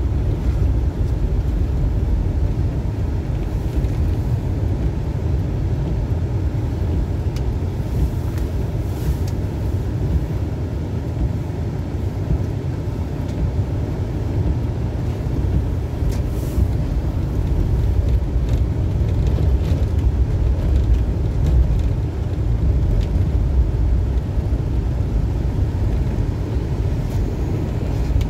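Mitsubishi Shogun 4x4 driving, heard from inside the cabin: a steady low rumble of engine and tyre noise.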